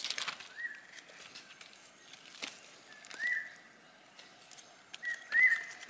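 A bird calling in short notes that slide up and then hold on one high pitch, three or four times, a couple of seconds apart. Scattered light rustling and snapping runs underneath.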